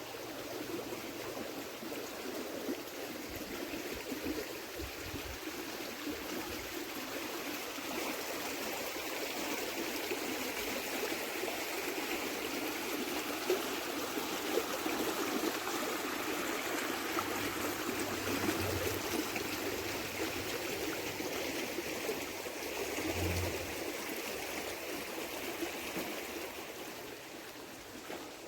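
River water flowing steadily, an even rushing and trickling.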